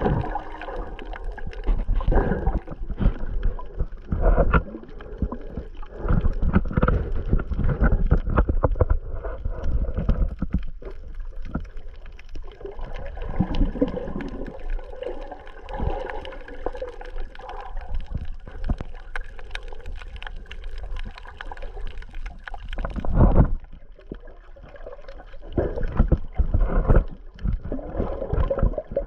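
Water heard underwater through a GoPro's housing: muffled, uneven sloshing and gurgling with low rushes as the camera moves through the water. There is a louder surge about 23 seconds in.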